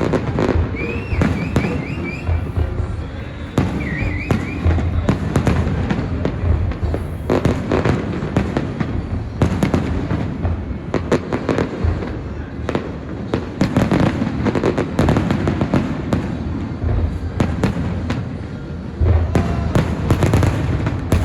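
Fireworks display: a dense, continuous barrage of bangs and crackling bursts from aerial shells, with two short wavering whistles in the first few seconds.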